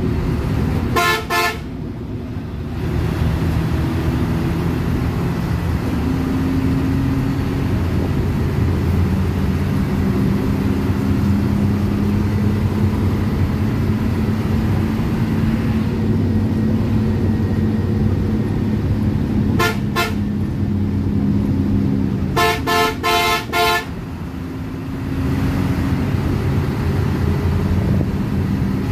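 Hino AK bus's diesel engine running steadily under load at highway speed, heard from the driver's cab, with the loudness dropping off briefly twice. The horn is blown in short blasts: a double toot about a second in, another pair around twenty seconds, and a quick string of four or five toots a couple of seconds later.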